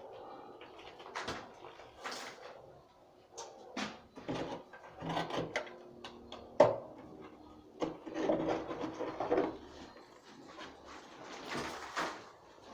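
Irregular scraping and rubbing from cleaning a fireplace, with a sharp knock about six and a half seconds in.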